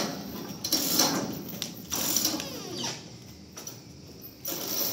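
Sawmill saw cutting through a large rain tree log, a harsh mechanical noise that comes in uneven surges with short falling whines and eases off for about a second and a half near the end before surging again.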